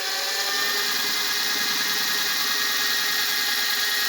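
Power drill running steadily with a high whine, drilling a small hole through a tire's nail puncture to open it for the patch plug.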